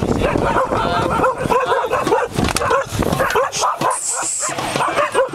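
A dog yipping over and over in quick, short calls, with people's voices underneath.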